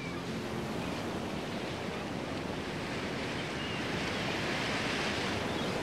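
Ocean surf breaking on a sandy beach: a steady wash of waves that swells louder about four seconds in as a wave crashes.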